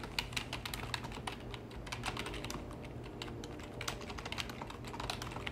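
Typing on a computer keyboard: quick, irregular keystrokes entering a file name.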